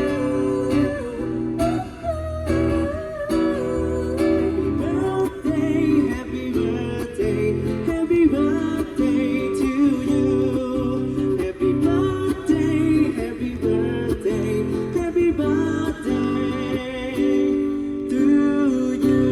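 A singer performing a Vietnamese song, the voice wavering in vibrato, over a steady plucked-guitar accompaniment.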